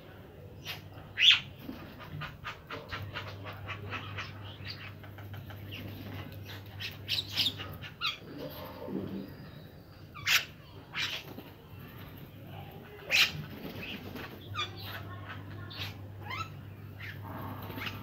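Mixed flock of house crows, common mynas and rock pigeons calling: loud harsh caws about a second in and again around ten and thirteen seconds, over a continual chatter of shorter calls, with a low warbling coo near the middle.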